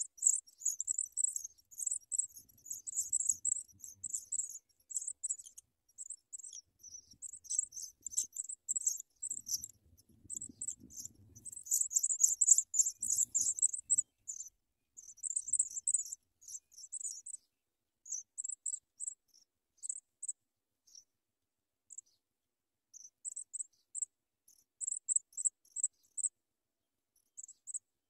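Songbird nestlings in a ground nest giving high, thin begging calls, a rapid dense chatter at first that thins out after about 14 seconds into short scattered bursts.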